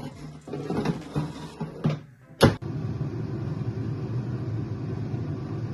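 Cosori air fryer basket being handled and pushed in, with a sharp click about two and a half seconds in, then the air fryer's fan starting and running with a steady hum.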